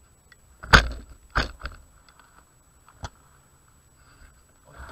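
Handling knocks and rattles on a metal detector with a camera mounted on its shaft: two loud knocks about a second in, then a softer click a little later.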